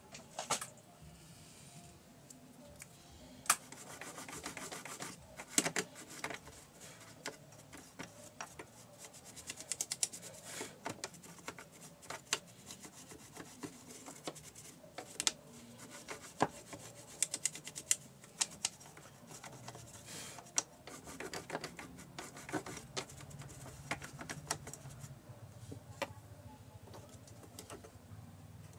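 Hands cleaning the bobbin area of a portable Singer sewing machine, a cloth rubbing and wiping against the plastic and metal, with many irregular clicks and ticks of small parts being handled.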